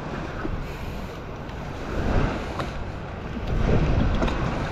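Wind buffeting the microphone over shallow water lapping and sloshing around hands as they twist a plastic screw-in sand anchor into the bottom. The rumbling swells twice, about two seconds in and near the end.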